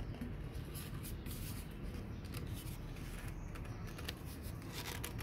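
A PVC pipe being pushed and twisted by hand into the end of another PVC pipe: a run of short dry plastic scrapes and clicks, most of them between about one and five seconds in, over a steady low background rumble.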